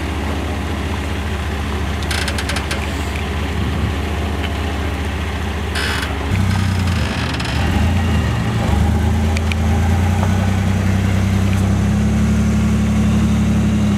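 Chevy S10's engine running at low speed under load while it tows a heavy gooseneck trailer, with a couple of brief rattles. About six seconds in, the engine note steps up and grows louder, then holds steady.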